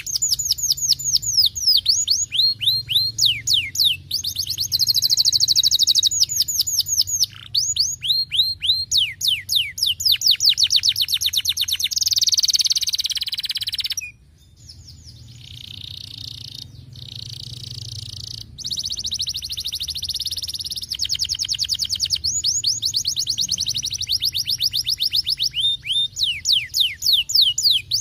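Domestic canary singing a long song of fast, repeated falling whistled notes strung into trills, with the tempo and note shape changing from phrase to phrase. About halfway through the song drops away abruptly, then builds back up into rapid trills.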